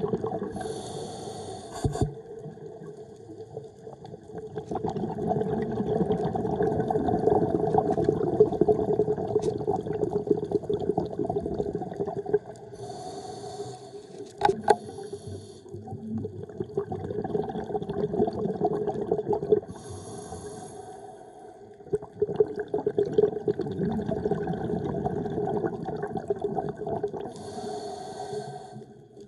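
Scuba diver breathing through a regulator, heard underwater: a short hiss of inhalation four times, each followed by a long stretch of bubbling exhalation.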